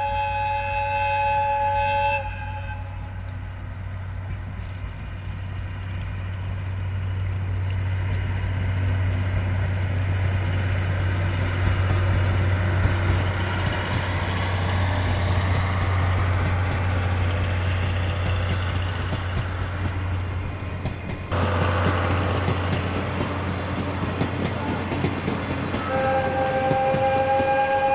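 DE10 diesel locomotive hauling passenger coaches: a two-tone horn blast for the first two seconds, then the engine's steady low drone under the rising and falling rumble of the coaches rolling past. A second two-tone horn blast sounds near the end.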